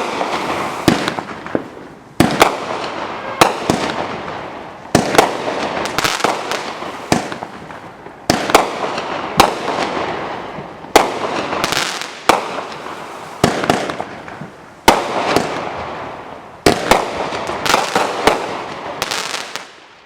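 Dominator Diamond Back 200 gram firework cake firing shot after shot, a sharp bang about every second and a half, each bang followed by a dense crackling that fades before the next.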